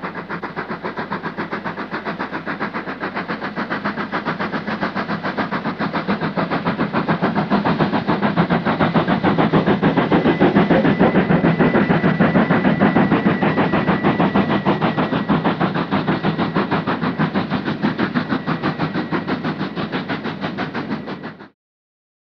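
Exhaust beats of an NSWGR 38 class 4-6-2 steam locomotive working a train up a grade: rapid, even chuffs of about five a second, growing louder toward the middle, then cutting off suddenly near the end.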